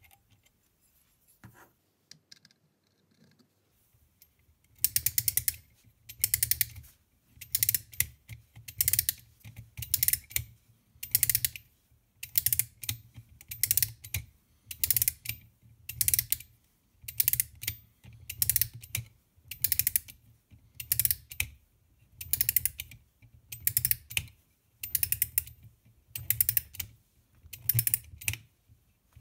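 A 1930 Meccano clockwork motor being wound up with its key: the ratchet and pawl click in a short rattling burst with each turn, about one turn every second, some twenty turns after a few faint clicks at the start.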